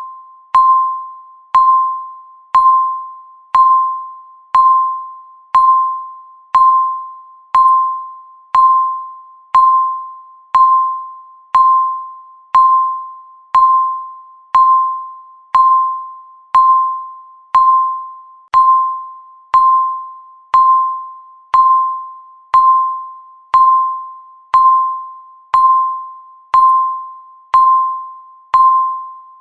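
Countdown timer beep: one short electronic tone each second, each starting sharply and fading away, marking every second left in the count.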